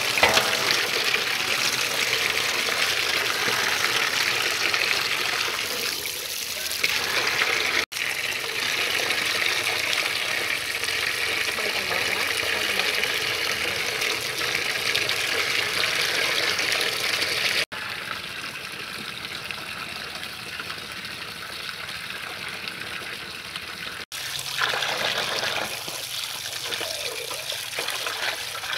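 A stream of running water pouring into a large aluminium basin and splashing as two whole raw chickens are rubbed and rinsed in it by hand. The water sound runs steadily, broken by three brief cuts.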